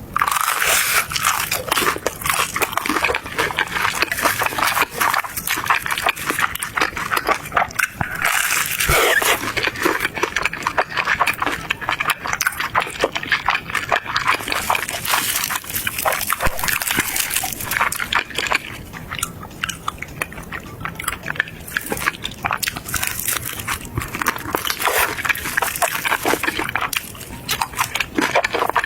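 Close-miked eating: continuous biting and chewing of crunchy food, a dense run of crackly crunches and mouth clicks.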